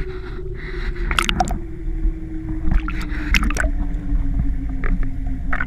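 Underwater and surface water sound: gurgling and splashing with several sharp knocks, over a long low hum that slowly falls in pitch.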